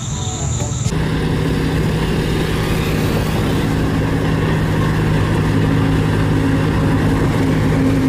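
Two single-drum road rollers working a gravel base, their diesel engines running in a steady, even drone that comes in abruptly about a second in. Before that, a steady high insect chirring.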